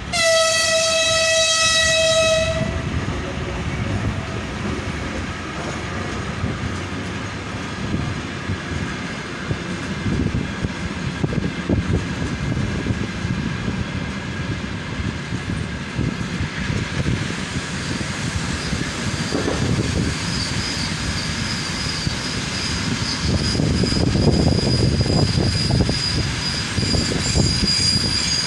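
VL80K electric locomotive's horn gives one long blast of about two and a half seconds. Then the arriving passenger train rolls past with a continuous rumble and clickety-clack of wheels over rail joints. From about two-thirds of the way through, a high steady squeal joins in as the train slows.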